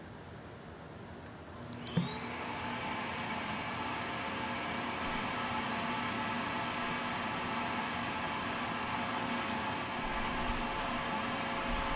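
A vacuum motor switches on with a click about two seconds in, whines up to speed and then runs steadily. It is drawing air through an MDF vacuum clamp so that the air pressure holds a wooden panel down.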